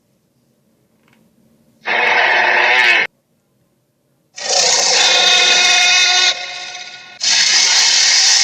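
Monster roar sound effects: three separate gritty roars, a short one about two seconds in, a longer one from about halfway that trails off, and a third starting near the end.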